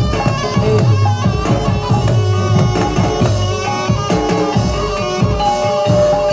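Traditional Javanese music accompanying a barongan dance: drums beating a busy rhythm under several melodic instruments, with one long held note near the end.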